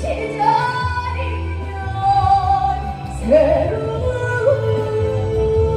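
A woman singing a Korean trot song over a recorded backing track, holding long notes on the words of the chorus.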